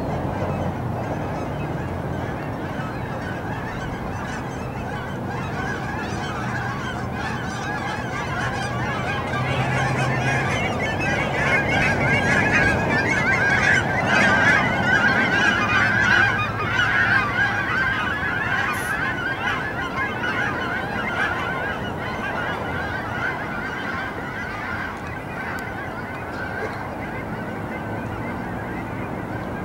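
A flock of birds calling, a dense chorus of many overlapping calls that swells loudest around the middle and eases off toward the end.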